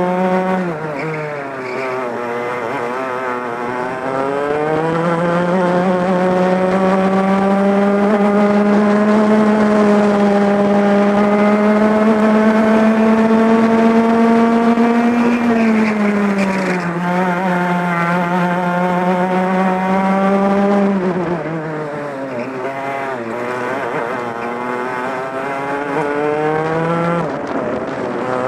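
Two-stroke racing kart engine at full throttle, heard from the driver's seat through a lap. The engine note climbs steadily for about ten seconds along a straight, falls sharply as the driver lifts off for a corner, holds, falls again, then rises and dips through a run of corners and picks up near the end.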